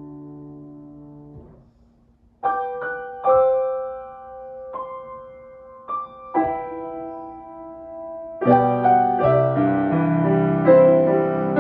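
Grand piano playing a slow hymn arrangement: a low held chord fades away into a short pause about a second and a half in, then a few single higher notes are struck one by one and left ringing. About eight and a half seconds in, fuller chords in both hands come in, louder.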